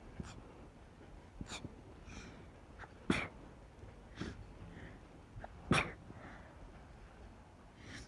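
A run of small, stifled hay-fever sneezes into tissues, with sniffles between them; the two loudest sneezes come about three seconds in and just before six seconds in.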